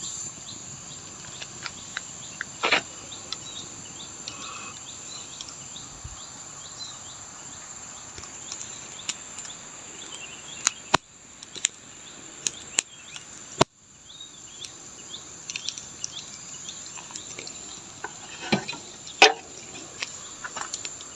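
Insects in tropical forest giving a steady, high-pitched trilling drone. A few sharp knocks or clicks stand out above it, the loudest things heard.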